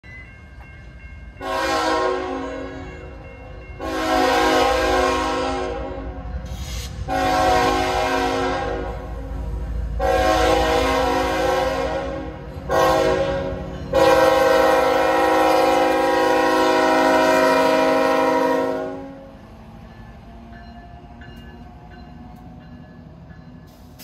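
Norfolk Southern GE ET44AC diesel locomotive's multi-chime air horn sounding six blasts: four long ones, a short one, then a final long blast of about five seconds. The last four make the long-long-short-long grade-crossing signal. A low locomotive rumble runs under the horn and carries on alone once the horn stops, a few seconds before the end.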